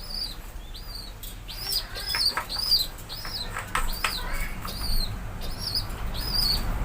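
A small bird chirping over and over, short arched chirps at about two a second, with a few faint clicks behind them.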